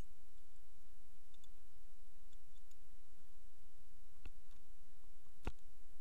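A few light clicks over a steady low rumble, with two sharper clicks about four and five and a half seconds in, the second the loudest.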